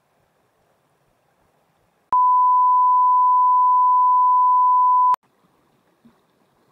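A loud, steady electronic beep, a single pure tone at about 1 kHz. It starts about two seconds in and cuts off abruptly about three seconds later, with a click at each end.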